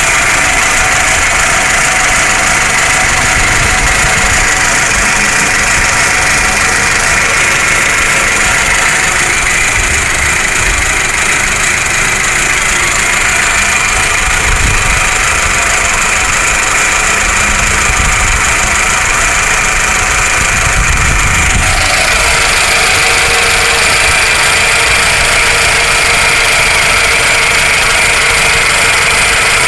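1999 Toyota Camry/Solara 2.2-litre four-cylinder engine idling roughly with a diesel-like clatter. The freshly rebuilt engine is bucking at idle, a fault whose cause the owner does not know.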